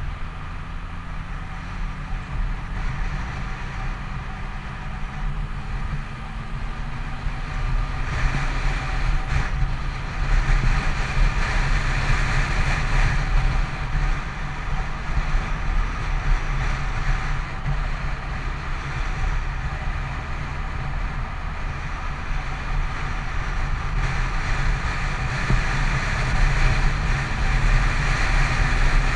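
Yamaha FZ6 motorcycle's inline-four engine droning at highway cruising speed under steady wind and road rush on the bike-mounted camera's microphone. The rush grows louder about a third of the way in.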